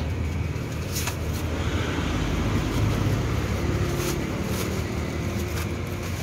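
Street traffic: a motor vehicle engine running close by with a steady low rumble, and a few light clicks over it.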